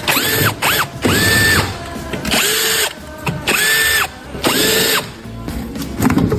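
Cordless power drill run in about six short bursts, each spinning up to a steady whine and winding down again.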